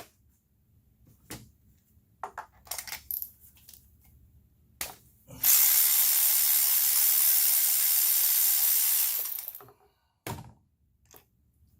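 Scattered clicks and clatters of tools and parts being handled. Then a compressed-air blow gun gives one steady hiss of about four seconds, about halfway through, blowing oil off a fouled spark plug or out of a plug hole. It tails off, and a few more clicks follow.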